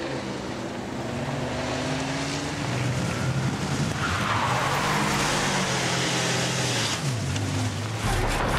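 Small van's engine running hard under acceleration as it is driven fast around a wet track, with tyres skidding on the wet tarmac from about halfway through. The engine revs drop near the end.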